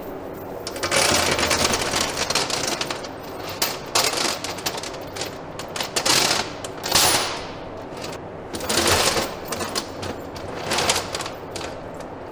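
Steel tire chain links rattling and clanking against each other and a steel table as the chain is lifted and laid out, in several loud, irregular bursts of clatter.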